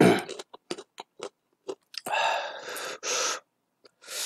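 Close-miked chewing of crispy fried ngohiong: a run of short crunches and mouth clicks, with a denser, noisier stretch about two seconds in.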